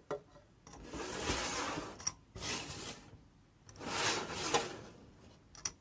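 Thick, hot strawberry jam being scraped out of a stainless steel pot into a glass jar: three scraping strokes, each a second or so long, with a few light clicks between them.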